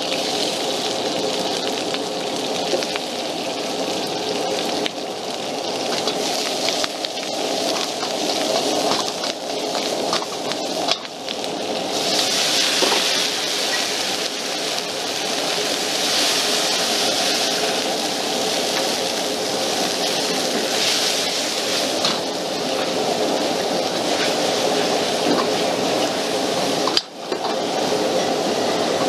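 High-powered gas wok burner running loud and steady, with stir-fried vegetables sizzling in a hot wok; the sizzle is strongest in the middle, while the wok fills with steam. The sound dips out briefly twice.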